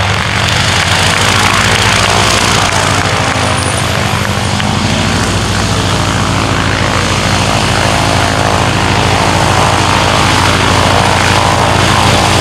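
Boeing Stearman PT-17 biplane's Pratt & Whitney radial engine running steadily as the plane taxis on the ground, propeller turning.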